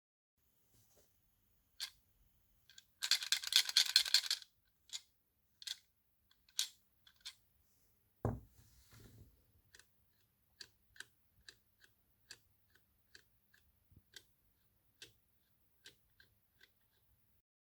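Sharp clicks and taps of metal parts being handled, with a quick rattling burst a few seconds in, a dull knock around the middle, then a run of light clicks about two a second.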